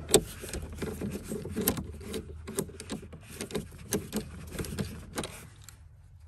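Irregular small metallic clicks and scrapes, a few a second, from a 10 mm socket driver turning and unscrewing the car battery's terminal bolt. The clicks die away near the end.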